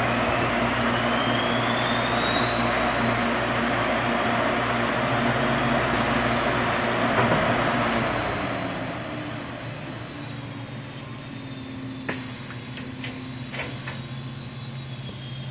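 Thermoformer (vacuum forming machine) running through its cycle: a loud, steady rush of air with a slowly rising whine, which dies away about eight seconds in and leaves a steady machine hum. A few sharp clicks and a short hiss come near the end.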